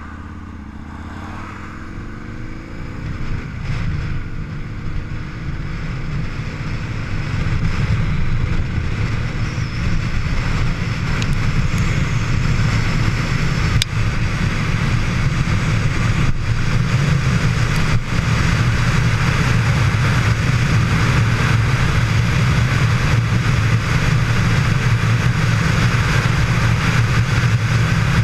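Motorcycle ridden on the highway, heard from the rider's helmet: the engine climbs in pitch over the first few seconds as it accelerates, then the engine and wind rush build and settle into a steady loud roar at cruising speed.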